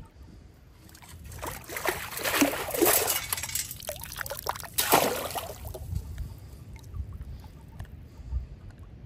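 Water sloshing and draining through the holes of a perforated metal sand scoop as it is lifted out of the river, for about two seconds starting a second or so in, then a short sharp splash around five seconds in.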